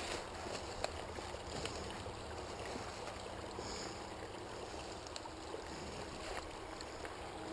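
Small spring-fed brook trickling steadily over rocks, with a few faint clicks.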